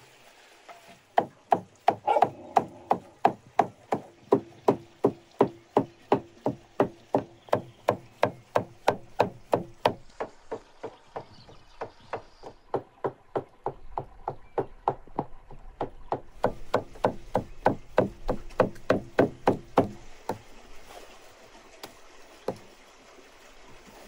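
A heavy cleaver chopping raw meat into mince on a wooden stump chopping block: rapid, even strikes about three a second. The strikes stop about 20 seconds in.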